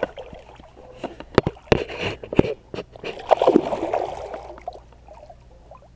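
Hooked channel catfish splashing and thrashing in the water as it is landed by hand without a net, with a few sharp knocks among the splashes.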